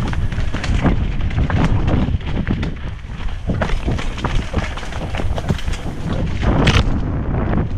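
Mountain bike descending a rough dirt trail at speed: wind rumbling on the microphone, with constant rattling and knocks from the bike over the bumpy ground and one louder hit about six and a half seconds in.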